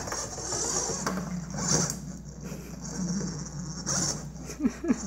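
Sphero BB-8 toy robot rolling across a hardwood floor, a low steady rumble of the ball and its drive on the boards, with a few light knocks near the end.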